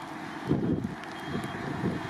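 Boeing 747-400 freighter's four jet engines at takeoff power during the takeoff roll, heard from behind: a low, uneven rumble that swells and fades in rough pulses.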